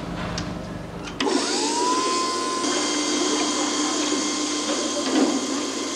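Motorised container of a library's rail conveyor for books and order forms running along its track. It makes a steady whirr, and a motor whine rises in pitch about a second in and then holds steady.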